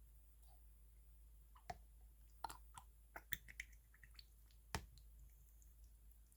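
Yellow slime being squeezed and stretched by hand, giving faint scattered clicks and small pops. There is a quick run of them in the middle and a sharper pop a little later.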